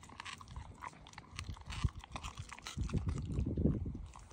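German Shepherd chewing and crunching on raw deer meat, with a run of short clicks from teeth and a louder stretch of gnawing about three seconds in.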